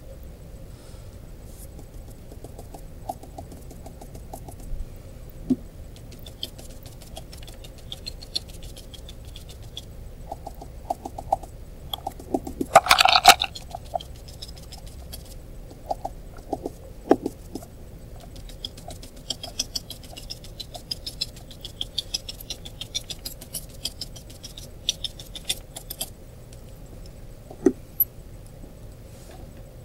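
Stiff fan brush loaded with white tempera paint dabbed and scrubbed on construction paper: a run of small scratchy taps, with a louder clatter about 13 seconds in.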